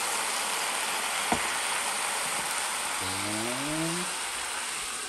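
Chicken dakgalbi (chicken, cabbage, rice cakes and vegetables) sizzling steadily in an electric pan just after a splash of water has been added. A light click comes about a second in, and a short rising tone comes a few seconds in.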